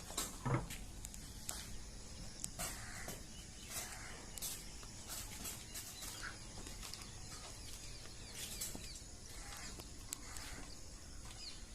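Farm ambience: scattered light clicks and knocks, with faint bird chirps.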